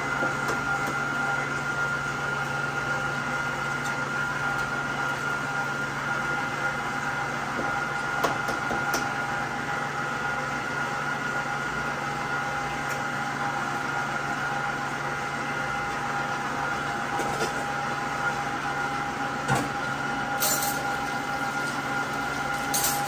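Electric stand mixer running at a steady speed, combining sugar, eggs, oil, vanilla and vinegar for cake batter, with a constant motor hum and whine. A few light clinks, and near the end two short splashes of water from the kitchen tap.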